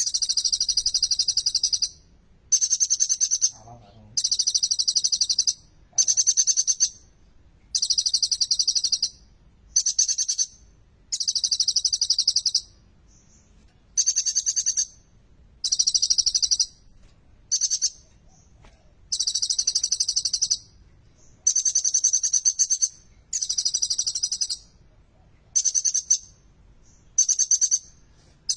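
Sunbird (kolibri ninja) singing loud, high, rapid trilling phrases in repeated bursts of about a second each, separated by short pauses, the song said to be full of mimicked material, above all bar-winged prinia calls.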